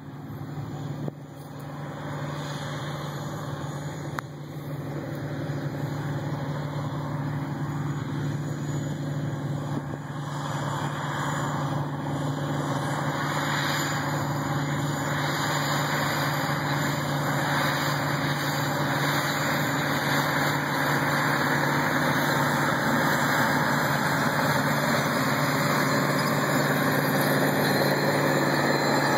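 John Deere 8850 tractor's 15.7-litre turbocharged V8 diesel running under load as it pulls a tillage implement, a steady drone that grows gradually louder as the tractor comes closer.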